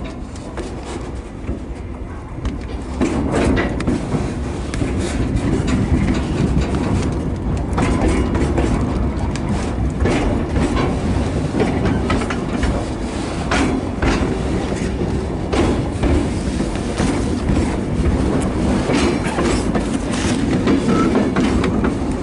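Caboose and ore cars of a shoved train rolling through a rail yard, heard from the caboose at the leading end: a steady rumble of wheels on the track with clicks over rail joints and switches. The rumble grows louder about three seconds in.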